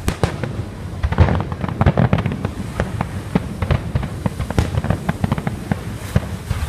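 Fireworks going off in a dense, irregular run of sharp bangs and crackles, many overlapping, thickest about a second in.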